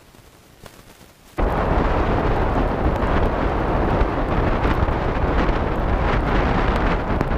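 A few faint clicks, then about a second and a half in, strong wind starts suddenly, buffeting the microphone with a loud, heavy rumble that carries on.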